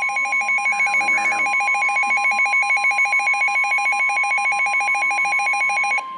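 The steady 1050 Hz NOAA Weather Radio warning alarm tone, which announces a warning, begins at the start, under a loud, rapid electronic trill from a weather radio receiver's alert alarm. The trill cuts off about six seconds in, leaving the steady tone alone.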